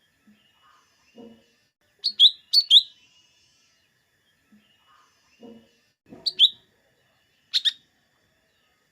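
Lesser green leafbird (cucak daun, cucak ijo mini) singing: loud, sharp whistled notes in short clusters of two or three, each dropping quickly in pitch, with fainter softer calls in between.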